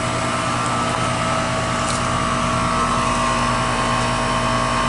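2008 Goodman heat pump running steadily in heat mode: an even mechanical hum with several held tones over a steady rush of fan noise.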